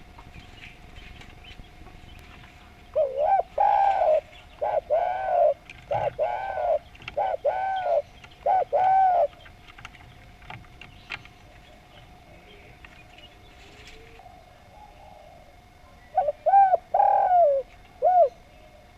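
Spotted dove (Javanese derkuku) cooing: a loud phrase of about seven arched coos a few seconds in, then a shorter phrase of three or four coos near the end.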